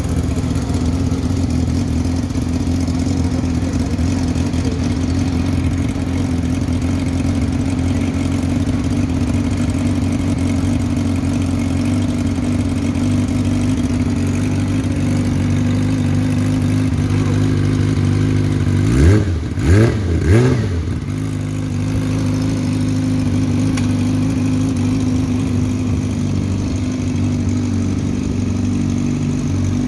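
Yamaha R6 inline-four engine idling steadily through a Yoshimura aftermarket exhaust, with three quick throttle blips about two-thirds of the way through, each rev rising and falling in pitch, then back to idle.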